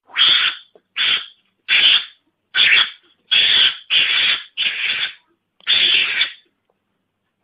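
Mongoose lure call: a string of short, harsh, hissy cries, about one a second, some in quick pairs, with a longer cry near the end.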